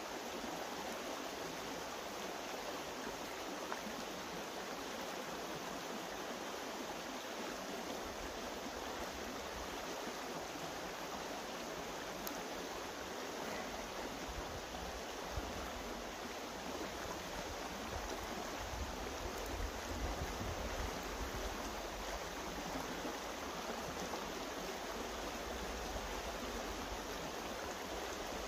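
Steady rush of a stream's flowing water, with wind rumbling on the microphone in the second half, strongest a little over halfway through.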